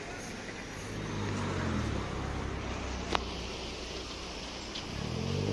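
Car engines running on the street, rising in pitch twice as cars pull away and accelerate, once about a second in and again near the end. A single sharp click comes about three seconds in.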